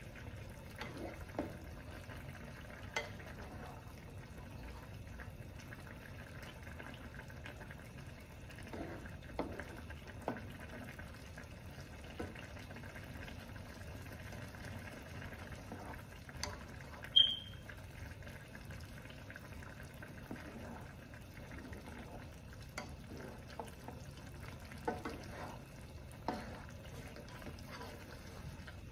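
Macaroni simmering in a pan of water, a steady low bubbling hiss, with scattered clicks and scrapes of a spoon stirring against the pan. A single short high ping sounds about halfway through.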